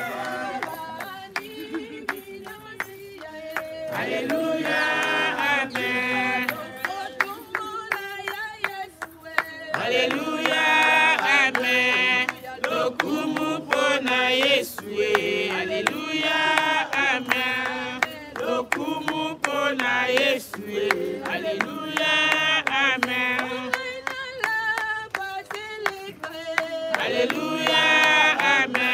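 A group of mourners singing a song together at the graveside, in sung phrases of a few seconds with short breaks between.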